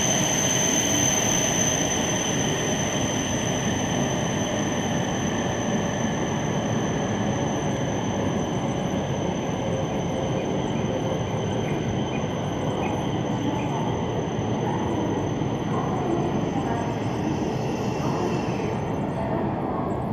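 Steady mechanical roar from a Shinkansen bullet train alongside the platform, with a thin high whine over it that fades out near the end.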